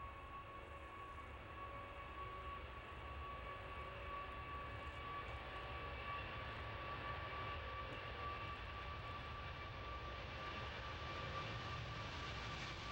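Airbus A380's four Rolls-Royce Trent 900 turbofans at takeoff power during a minimum-unstick-speed takeoff run. A steady fan whine sits over a rushing roar that builds slowly as the aircraft closes in, with more hiss near the end.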